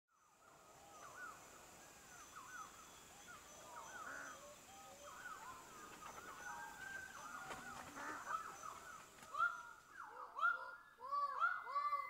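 Male Greater Birds-of-Paradise calling, a chorus of many overlapping arched notes that fades in at the start. From about nine seconds in, a nearer bird calls in a loud quick series of repeated notes. A faint steady high-pitched tone runs underneath until about ten seconds in.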